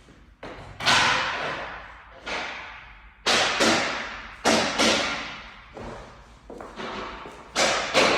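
Sharp knocks, about ten at irregular spacing, some in quick pairs. Each one trails off over about a second, like wood being struck during floor fitting.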